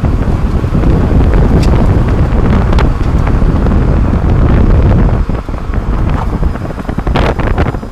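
Tyre, road and wind noise from beneath a moving 30-series Toyota Prius, heard from a camera under the rear bumper, with a few sharp knocks, the strongest about seven seconds in.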